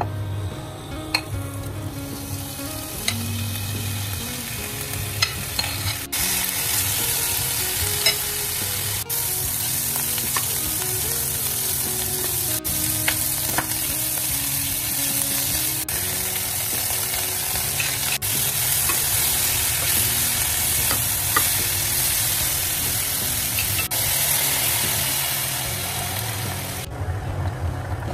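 Cubes of pork belly sizzling as they brown in a dry non-stick pan, with a spoon stirring and scraping against the pan now and then. The sizzle dies away near the end.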